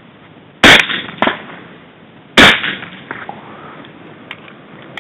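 Two suppressed .45 ACP pistol shots from a SIG P220 fitted with an AAC TiRant suppressor, about a second and three-quarters apart, each a sharp pop that dies away quickly.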